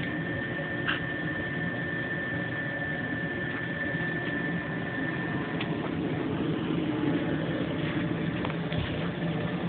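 Homemade gas turbine engine running steadily just after starting, a whirring hum with a thin high whine that stops a little after halfway through.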